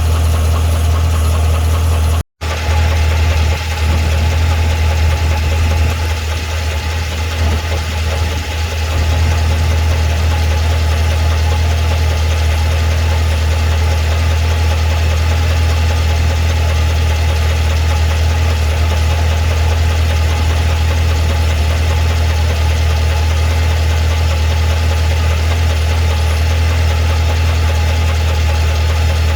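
2012 Cadillac CTS-V's supercharged 6.2-litre V8 idling steadily, with the ticking/knocking noise the owner is recording it for. The sound drops out for an instant about two seconds in.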